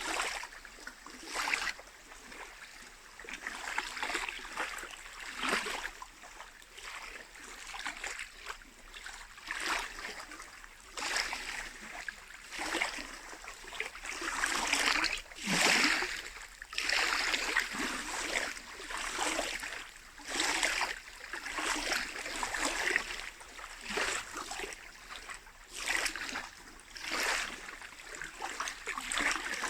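Small lake waves lapping and splashing against the shore in irregular surges, about one every second or two, with the biggest splash about halfway through.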